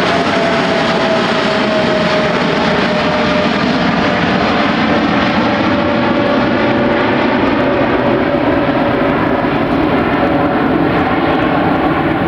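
Boeing 747's four jet engines running loud and steady as the airliner passes, with a whine that slowly falls in pitch.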